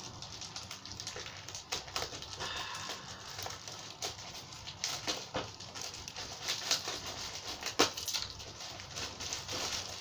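Plastic parcel wrapping crinkling and rustling as it is handled and cut open with scissors: irregular crackles and snaps, with one sharper snap late on.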